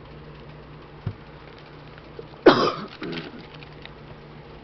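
A person coughs once, sharply, about halfway through, with a softer throat-clearing sound just after. A light tap comes about a second in.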